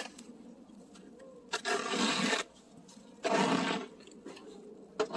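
Snow shovel scraping across wet asphalt as it pushes heavy, slushy snow, in three separate strokes about one and a half seconds apart.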